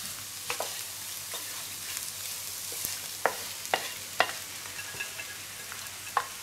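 Wooden spatula scraping and knocking against a non-stick frying pan as fried potatoes with bacon and egg are pushed out onto a plate, over a steady sizzle from the still-hot pan. Several sharp knocks, the loudest a quick few about three to four seconds in.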